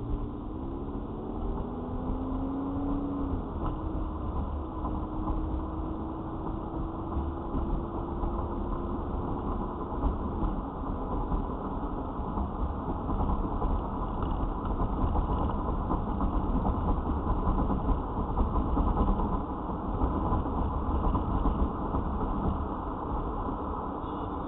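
Car engine and tyre noise heard from inside the cabin: the engine's pitch rises during the first few seconds as the car accelerates, then settles into a steady low drone at highway speed.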